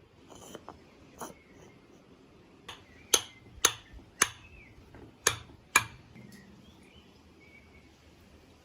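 A series of sharp knocks: a few faint ones, then five loud ones in under three seconds, each with a short ring after it.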